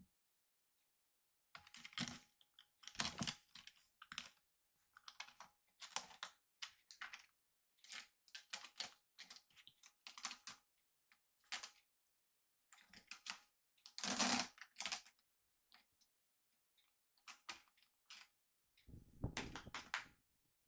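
A kitten's claws scratching and scrabbling on a cat tower's sisal-rope post and carpeted platforms as it climbs. Irregular bursts of scratching come with short silences between, and a few carry a dull thump.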